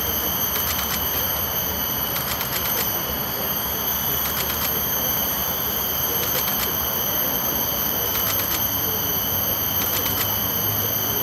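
Outdoor ambience: a steady high-pitched whine over an even hiss, with short clusters of faint ticks every couple of seconds.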